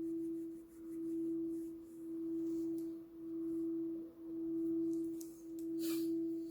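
Himalayan singing bowl being rubbed around its rim, giving one continuous ringing tone that swells and fades a little more than once a second, with a fainter lower tone beneath.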